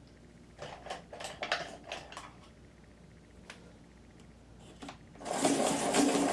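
A few light clicks as a pencil is handled and set in the sharpener, then, about five seconds in, a vintage Apsco Giant hand-crank pencil sharpener grinds as it is cranked, its freshly fitted 3-A cutter head shaving the pencil with a steady rhythmic whirr.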